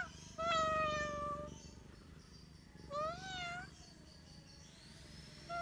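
Domestic cat meowing: a drawn-out meow of about a second with a slightly falling pitch, then a shorter one that rises and falls, and another starting near the end.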